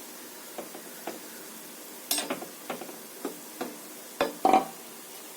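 Sweet seedai (small wheat-dough balls) frying in a little oil in a kadai, golden and crisp, with a faint steady sizzle. A ladle stirs them, clinking and knocking against the pan several times; the loudest knocks come about two seconds in and again around four and a half seconds.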